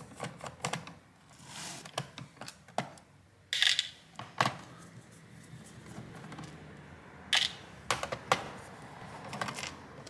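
Irregular clicks and taps of a Phillips screwdriver and small screws against the plastic bottom case of an Asus F555L laptop as the case screws are taken out and set down. A few louder clatters come about three and a half seconds in and again near seven and a half seconds.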